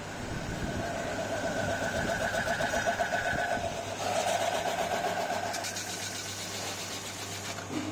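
Lathe running with a brass plate spinning on it: a steady motor hum under a whine with a fast flutter, which fades away about six seconds in.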